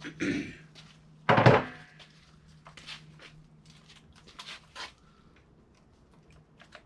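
Metal hand tools clicking and clinking on the engine's valvetrain while rocker arm bolts are worked loose, with a short scrape just after the start and one loud thunk about a second and a half in.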